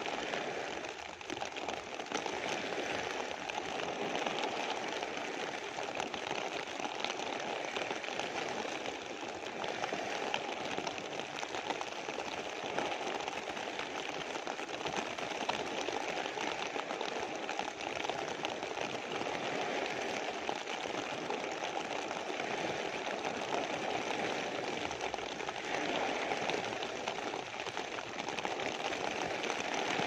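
Rain falling on a clear plastic sheet: a dense, rapid ticking of drops over a steady hiss, with small waves breaking on a pebble beach.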